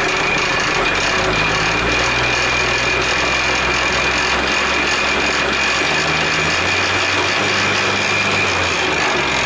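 ARBOS tractor engine running steadily and driving a rotary tiller through the PTO shaft, with a constant high whine over the engine sound.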